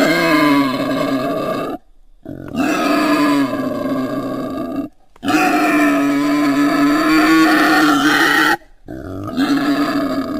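Wild boar piglets calling: a run of long, drawn-out pitched calls, broken by sudden short gaps about every two to three seconds.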